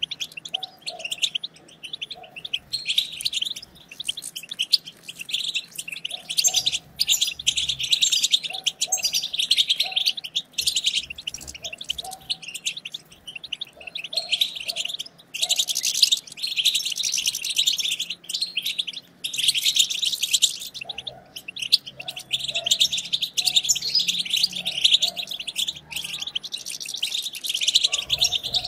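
European goldfinches twittering and chattering, several birds at once in a dense, rapid run of high chirps, with a couple of short breaks about halfway through.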